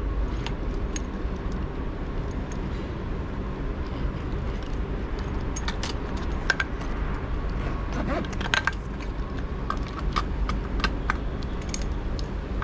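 Scattered light clicks and rattles of plastic wire connectors and cables being handled, over a steady low background rumble.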